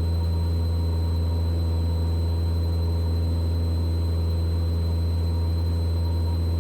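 A Mooney M20E's four-cylinder Lycoming engine and propeller running steadily at climb power.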